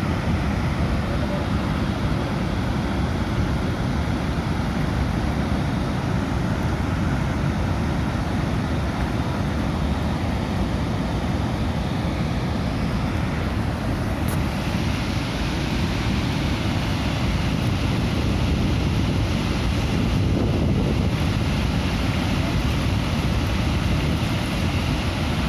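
Waterfall, its falling water rushing loudly and steadily without a break.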